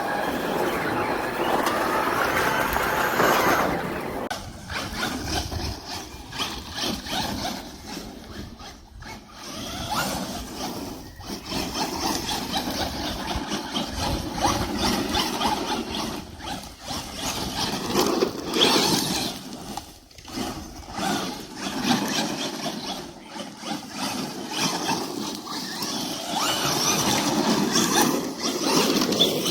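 Radio-controlled car driving on a test run after an axle repair, its motor and drivetrain whining and squealing, the pitch rising and falling as it speeds up and slows down.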